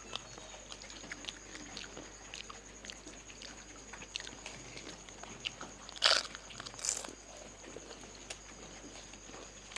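Crisp fuchka (pani puri) shells being bitten and chewed: scattered small crunches, with a loud crunch about six seconds in and another about a second later.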